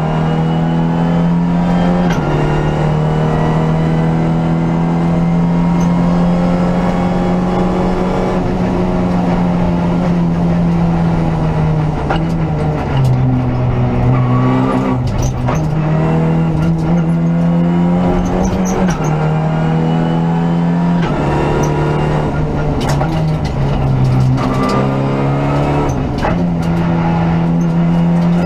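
Renault Clio Rally5's turbocharged four-cylinder engine at high revs, heard from inside the cockpit. Its note holds, then steps down and back up several times as the driver changes gear. Stones from the gravel road tick and ping against the car, more often in the second half.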